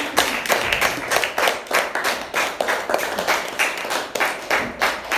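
Small audience clapping, with hands close by making quick, sharp claps several times a second.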